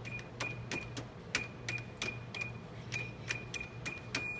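Cash register keys pressed about a dozen times in quick, uneven succession, each press a click followed by a short high beep; the last beep, near the end, is held longer.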